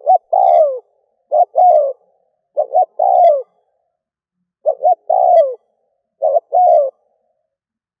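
Spotted dove, a decoy bird, cooing. It gives five phrases, each a quick one or two short notes followed by a longer coo that falls in pitch, repeated about every one and a half seconds, with a longer pause near the middle.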